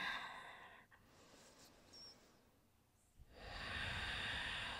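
A woman's slow, deep yoga breaths. One breath trails off in the first second, then after a pause of about two seconds another long breath begins a little past the middle and slowly fades.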